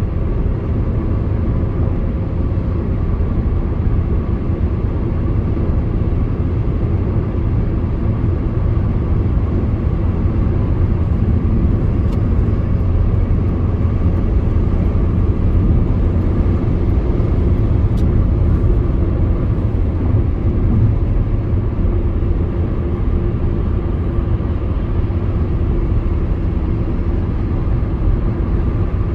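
Steady road and engine rumble heard inside a car cruising at highway speed, with two faint ticks midway through, about six seconds apart.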